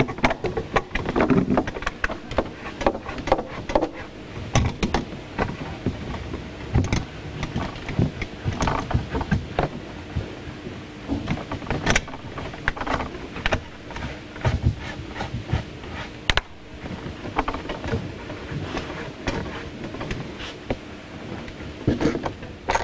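Irregular clunks, knocks and scraping as a hot tub jet pump is fastened back down and its plastic pipe unions are tightened by hand. A faint steady hum runs underneath in the second half.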